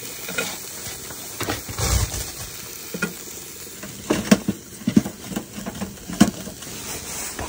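Venison brats sizzling in a cast iron pan. About four seconds in, a run of sharp wooden knocks and clunks comes as split firewood is handled and pushed into the wood stove.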